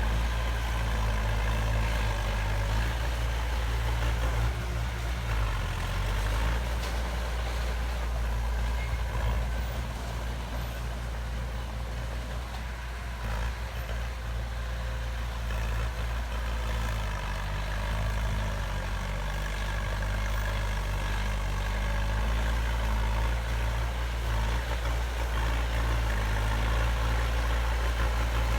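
Heavy diesel engine of earthmoving machinery running steadily at low revs, easing off a little midway and picking up again.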